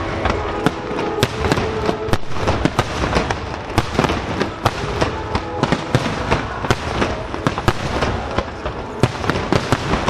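Starmine fireworks barrage: a dense, continuous run of aerial shell bursts and crackling, several sharp bangs a second, heavily echoing.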